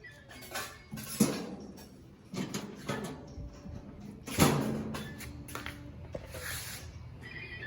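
Sheet-metal gas grill parts being handled during assembly: several knocks and scrapes with short metallic ringing, the loudest about four and a half seconds in.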